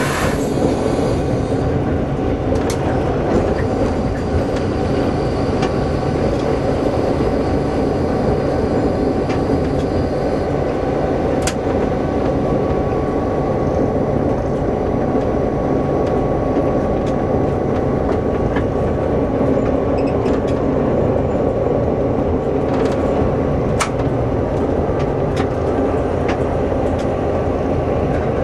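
Cab sound of a DSB class MY diesel-electric locomotive under way, its GM-EMD two-stroke V16 diesel engine droning steadily, with a few sharp clicks at intervals.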